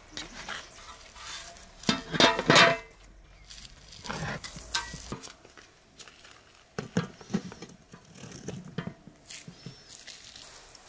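Clanks and knocks of a large aluminium cooking pot being handled and set down on an iron trivet over embers. The loudest is a ringing clatter about two seconds in, followed by scattered lighter knocks.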